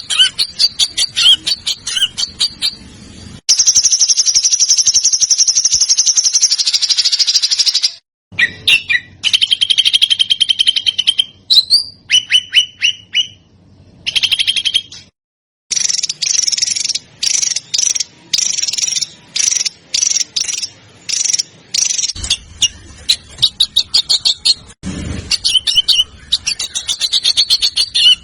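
Recorded songbird calls spliced together: fast, closely spaced rapid-fire chips and trills, high-pitched, with abrupt cuts between clips.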